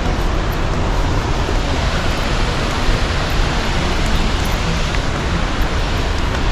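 Athirapalli waterfall's falling water rushing in a steady, loud, unbroken roar of noise.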